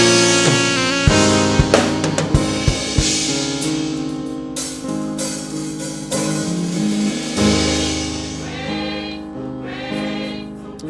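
Gospel worship music from a live band: held chords with singing, and drum kit strikes in the first three seconds.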